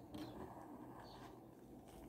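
Near silence: faint room tone, with one faint short high chirp about a second in.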